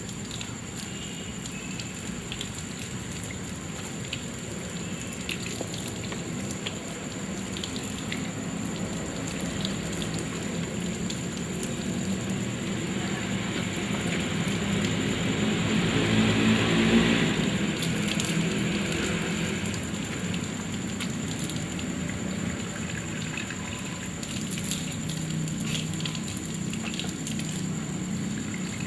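Water running from a tap and splashing over hands being washed, a steady splashing that grows louder a little past halfway and then settles back. A faint steady high-pitched whine sits underneath.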